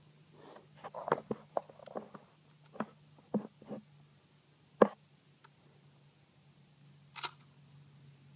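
Clicks and knocks of a Kel-Tec KSG bullpup pump-action 12-gauge shotgun being worked by hand to clear a malfunction, the spent shell not ejected and the next round stuck. A cluster of clicks in the first few seconds, one louder knock near the middle, and a single sharp click near the end.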